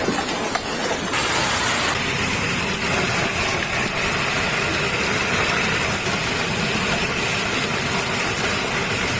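Heavy hail falling on a lawn and garden plants: a steady, dense pelting noise without let-up.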